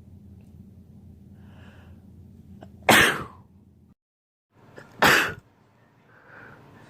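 A person sneezing twice, about two seconds apart: each sneeze is sharp and loud and comes after a short in-breath. These are allergy sneezes brought on by pollen.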